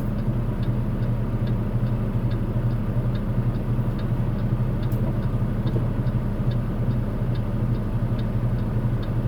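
Semi-truck's diesel engine droning steadily in the cab while driving, with a light ticking about twice a second and a single click about five seconds in.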